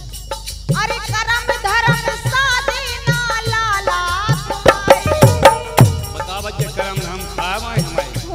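Bundeli rasiya folk song: a male and a female voice singing in turn to harmonium and dholak, with drum strokes and a shaken rattle keeping the beat.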